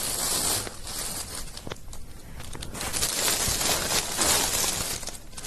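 Plastic bag crinkling and rustling on and off as a cat bites and pulls at it.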